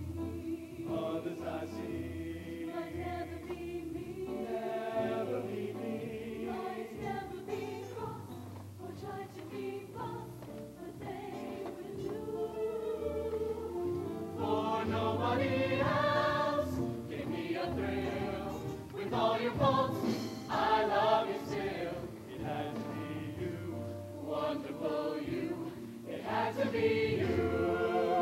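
Mixed-voice high school show choir singing together, growing louder in the second half.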